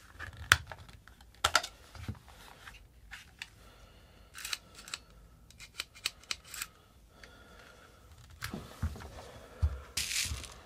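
Irregular sharp clicks and small ticks as BBs are pushed one by one into a spring-fed upright stick magazine for a CO2 replica rifle, its follower held down. Near the end, a louder rustle and knock as the rifle is picked up and handled.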